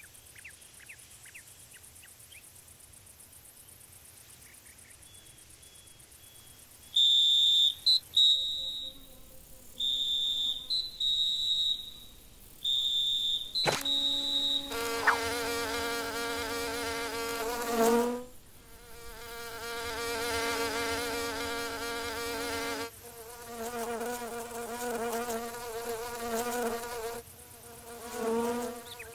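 Cartoon insect sound effects. A quiet garden background at first, then several short bursts of a high-pitched whistling tone, then a stylised buzz of an animated insect's wings that starts and stops several times.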